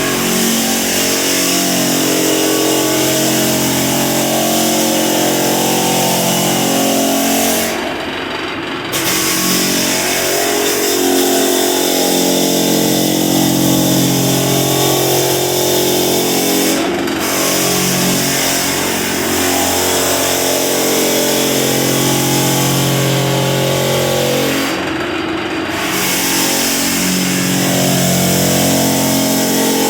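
Drum floor sander running steadily as it sands heavy varnish off a floor. The steady hum dips briefly three times, about 8, 17 and 25 seconds in.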